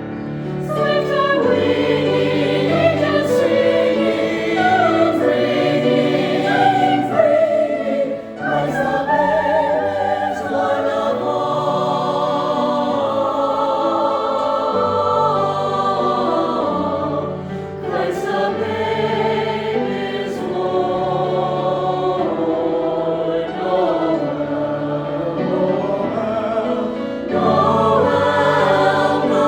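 Choir singing, several voice parts moving over held low notes.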